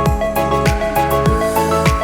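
Background music: an upbeat instrumental with a steady kick-drum beat and bright melodic notes.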